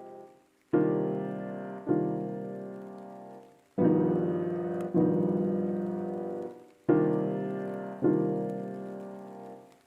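Background music: slow piano chords struck in pairs about a second apart, each left to ring and fade before the next pair.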